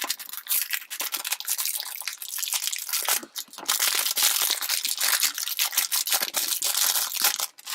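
Packaging crinkling and rustling as it is handled and opened: a dense, continuous run of small crackles, pausing briefly twice.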